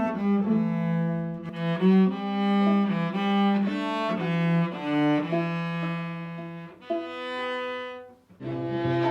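String quartet playing: sustained bowed notes with the cello low and prominent under the upper strings. The playing breaks off briefly about eight seconds in, then starts again.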